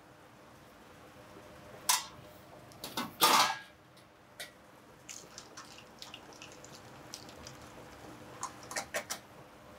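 Metal pot lids and pans clanking on a commercial gas range. There is a clank about two seconds in, a louder clatter of metal a second later, and a few lighter knocks near the end, all over a faint steady hum.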